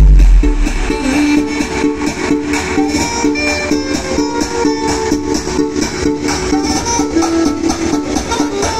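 Loud dance music blasting from BP Audio's truck-mounted sound system, its tall speaker stacks pushing heavy bass. A deep bass boom at the very start dies away within half a second, and a rhythmic track with a repeating melody carries on.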